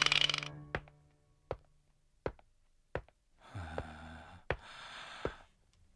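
The tail of a music cue fades out, then cartoon footsteps tap at an even pace, about one step every three-quarters of a second. Midway a character gives a breathy vocal sound.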